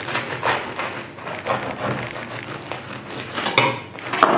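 Serrated bread knife sawing lengthwise through a freshly baked, crusty baguette in repeated strokes, the crisp crust crackling under the blade, with a sharper knock near the end.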